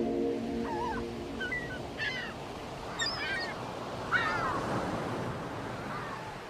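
Surf washing with birds giving short calls about half a dozen times, fading out toward the end.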